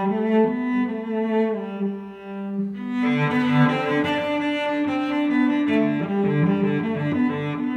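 Background music of slow, sustained notes that change pitch every half second or so, growing fuller about three seconds in.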